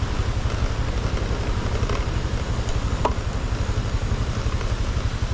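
Motorcycle engine running steadily at low revs on a steep descent, a low, fast-pulsing rumble with noise over it.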